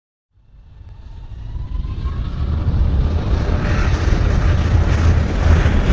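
Jet engines of a wide-body twin-engine airliner spooling up for takeoff: the noise grows steadily louder over the first three seconds, a deep rumble with a rising hiss above it and a faint whine climbing in pitch about a second in.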